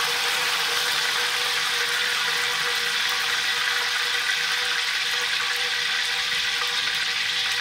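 Hot soybean oil sizzling steadily in a deep frying pan as a deep-fried pizza is lifted out.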